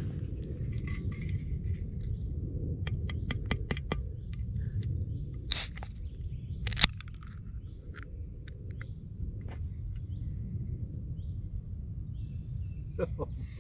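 An aluminium drink can being opened by its ring pull: a quick run of light clicks as a finger works at the tab, then two sharp cracks a little over a second apart as the tab breaks the seal. A steady low rumble runs underneath, and a short high bird trill comes near the end.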